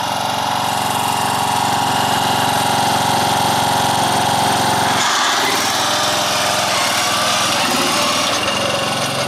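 Small engine of a homemade belt-driven racer running steadily. About five seconds in it revs up suddenly and gets louder as the racer pulls away.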